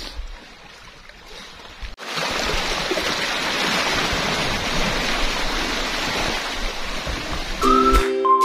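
Shallow water washing over sand and rocks at the shoreline, a steady rush that gets louder about two seconds in. Guitar music comes in near the end.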